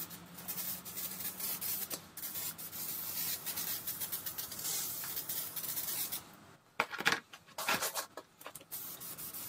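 Aerosol can of brake parts cleaner spraying unevenly as it runs low, mixed with a rag rubbing over a cast-iron engine block. After a short pause about six seconds in, the can gives four short spurts.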